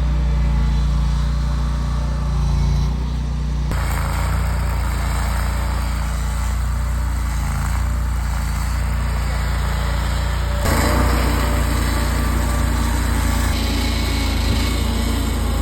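A small engine running steadily, its sound changing abruptly about four seconds in and again about eleven seconds in.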